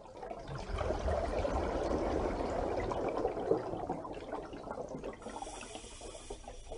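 Water bubbling and gurgling, swelling in over the first second and easing off after about four seconds.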